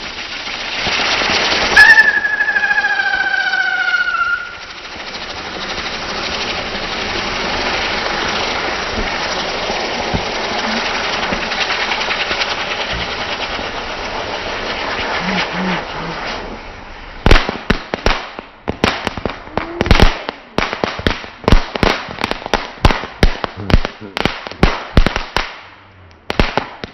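Consumer fireworks going off: a steady hissing burn, with a bang and a single falling whistle about two seconds in, then a rapid irregular string of sharp cracks and bangs over the last ten seconds.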